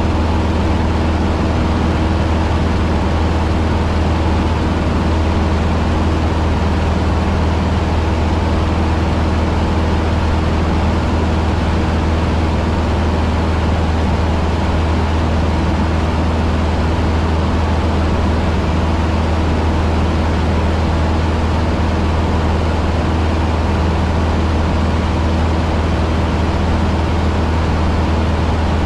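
Cessna 150's four-cylinder Continental O-200 engine and propeller running steadily, heard inside the small cockpit as a loud, even drone.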